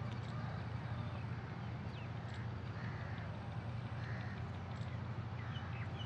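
Quiet open-field ambience: a steady low hum with several faint, distant bird calls, short arched calls about once a second or so, and a few small chirps.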